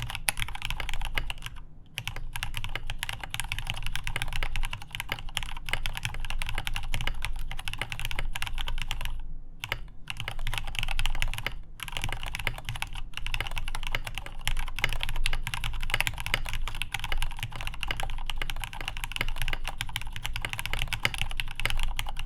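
Continuous fast typing on a mechanical keyboard with lubed Cherry MX Black Hyperglide linear switches, Akko ASA keycaps and a polycarbonate plate, a dense run of keystroke clacks with brief pauses about two, nine and a half, and twelve seconds in.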